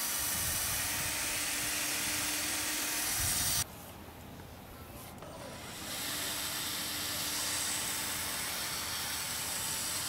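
Cordless drill spinning a foam polishing pad loaded with rubbing compound over a plastic headlight lens: a steady hiss with a faint motor hum. It drops away for about two seconds a third of the way in, then comes back.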